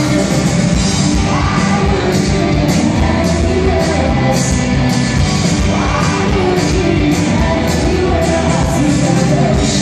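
Live rock band playing loud through a hall's PA: electric guitars, bass and drums on a steady beat, with a woman singing the lead. Recorded on a phone from within the audience, so the sound is dense and boomy with the hall's reverberation.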